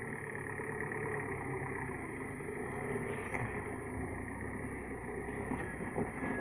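Old sand truck's engine running steadily, with a few faint clicks about halfway and near the end.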